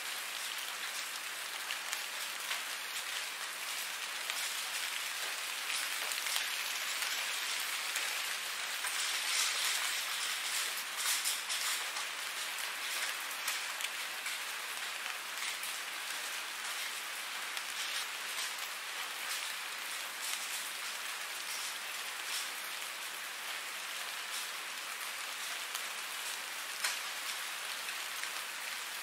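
Steady rain falling: a dense hiss with many separate drops ticking through it, swelling slightly about ten seconds in.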